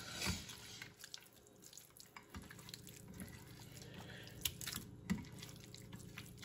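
Hands rubbing and mixing seasoning into raw, wet Pacific whiting fillets: a few soft, wet squelching and patting sounds, scattered and faint, over a steady low hum.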